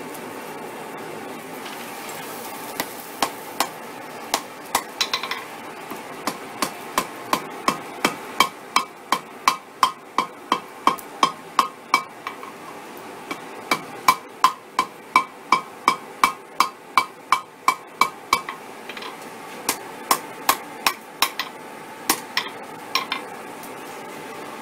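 Hand hammer striking a hot mild-steel chain link on the anvil, forge-welding the link closed without flux and rounding the weld on the anvil horn. The ringing blows start slowly, settle into about two a second, pause briefly about halfway, then go on before tailing off near the end.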